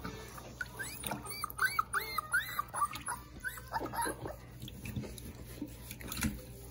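Young puppy whining in protest at being bathed: a quick run of short, high-pitched whines, each rising and falling, from about a second in to the middle, then fainter.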